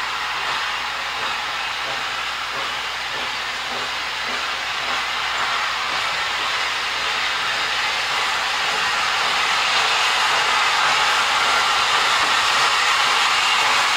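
USATC S160 2-8-0 steam locomotive working a train, a steady hiss of steam and exhaust that slowly grows louder as it comes closer.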